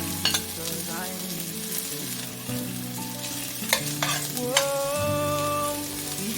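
Garlic and onion sizzling in hot olive oil in a Saladmaster stainless steel pan, stirred with a utensil that clicks against the pan a few times.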